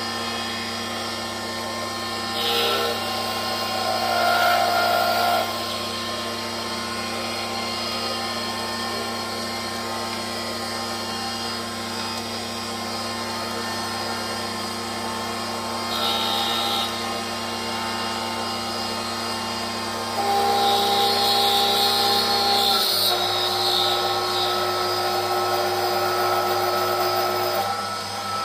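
Small benchtop metal lathe running with a steady motor hum and whine, the tool cutting the spinning workpiece in short passes: louder cutting noise briefly a couple of seconds in, again around 4 to 5 seconds and at about 16 seconds, then a long cut from about 20 seconds to near the end. The motor's tone drops a little partway through that long cut.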